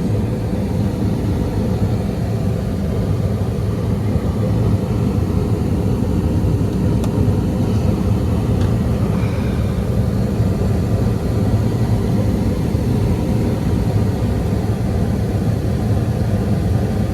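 York gas-fired rooftop HVAC unit running on a heating call: a loud, steady hum and rush.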